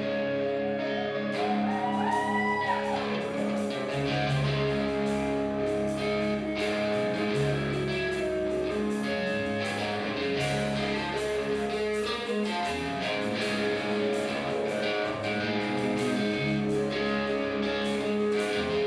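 A live rock band playing an instrumental passage: guitar over bass and a steady drum beat, with a short bent note about two seconds in.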